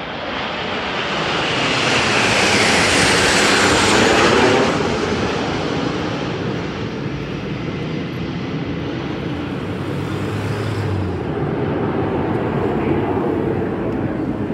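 Formation of jet aircraft flying past overhead. The engine noise swells to a loud pass about two to four seconds in, with a whoosh that falls in pitch as they go by, then eases to a lower, steady rumble.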